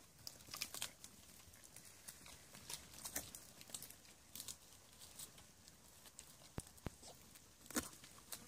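Sheep grazing on giant cane (Arundo donax) shoots: faint, irregular crisp clicks and crunches of the stalks being bitten off and chewed, with steps on dry cane litter and a few sharper snaps near the end.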